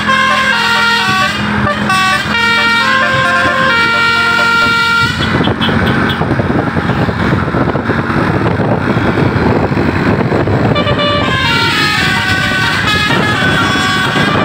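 A bus's multi-tone 'basuri' telolet horn playing a stepping melody. About five seconds in, the tune gives way to several seconds of loud engine and road noise. The horn melody starts again near the end.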